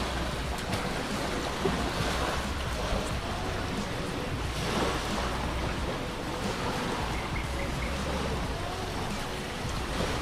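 Steady beach ambience: a continuous hiss of wind and small waves on the shore, with no distinct events.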